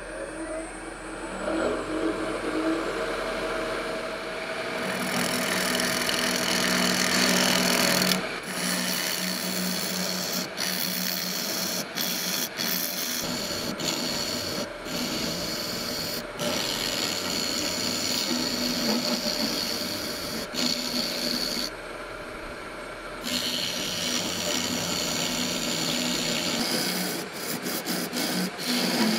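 Wood lathe turning a paper-and-epoxy micarta blank while a turning gouge cuts it: a steady hissing, scraping cut over the lathe's hum. The cut breaks off briefly several times, once for over a second about 22 seconds in.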